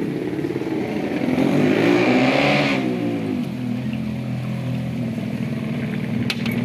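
A motor vehicle engine running, rising and then falling in pitch about two seconds in, then settling to a steady drone. A few sharp clicks near the end.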